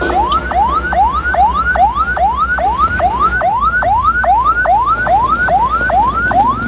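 Electronic siren sounding a fast repeating yelp: each note rises and then drops sharply, about three a second, over a low rumble.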